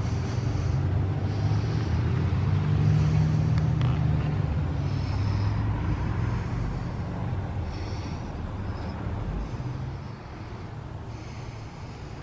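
A motor vehicle engine running nearby as a steady low hum that fades over the second half, as if the vehicle is moving away.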